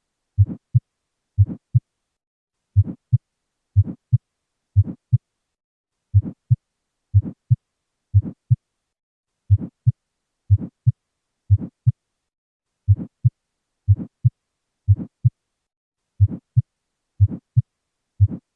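Heart sounds heard through a stethoscope, with an early systolic murmur: roughly one beat a second, each beat a low first sound followed closely by a second.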